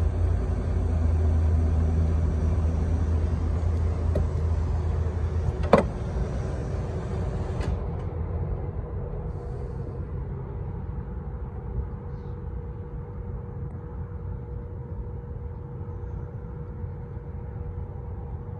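A steady low rumble with one sharp click about six seconds in. The rumble eases after about eight seconds, leaving a faint steady hum.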